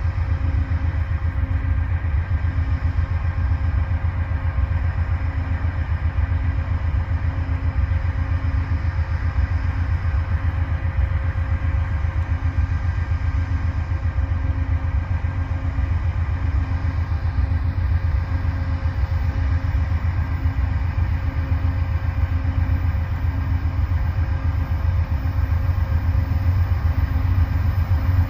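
Diesel freight locomotives running steadily: a deep, continuous rumble with a faint regular throb and a few steady tones above it.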